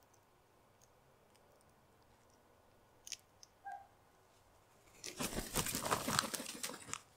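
Sulphur-crested cockatoo flapping its wings hard over a plastic seed tray: a dense two-second flurry of rapid wing beats and scrabbling that starts about five seconds in and stops suddenly. A couple of short sharp clicks come a little earlier.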